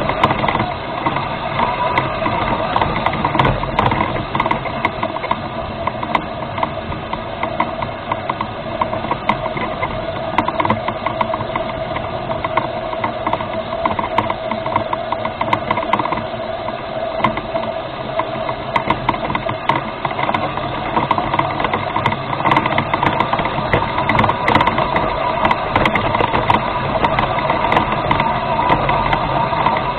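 Electric drive motors and gearboxes of a remote-controlled rover running steadily with a constant whine, with many small clicks and rattles throughout.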